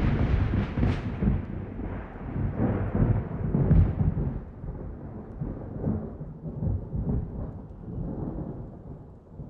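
Thunder rumbling over rain, loudest in the first four seconds and slowly fading away.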